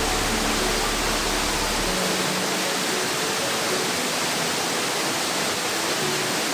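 Waterfall's steady, loud rush of falling water.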